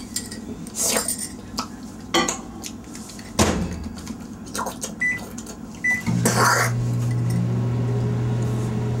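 Metal spoons clinking and scraping against small glass bowls. Two short electronic beeps, then a microwave oven starts running with a steady low hum about six seconds in.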